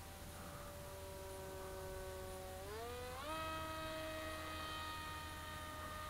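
Electric motor and propeller of a foam flying wing in flight, heard from the ground as a faint whine. Its pitch climbs about halfway through as the throttle is opened, then holds steady. A steady low hum lies underneath.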